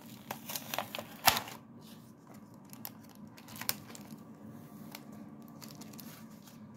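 Clear plastic blister packaging being handled and pulled open, with a quick run of crinkles and sharp clicks in the first second or so, then a few faint ticks over a low steady hum.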